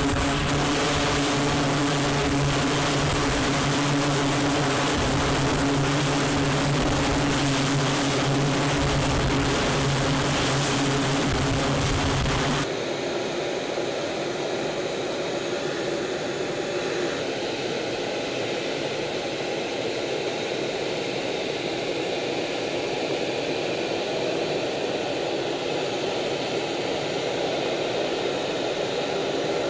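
Aircraft engine noise: a loud steady drone with a low hum from an E-2 Hawkeye's turboprops on a carrier deck. About thirteen seconds in it cuts off abruptly to a quieter, even rush of jet engine and air noise in flight.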